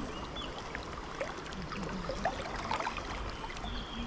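River water rushing past, a steady rush full of small gurgles and splashes as the current breaks around the wading angler.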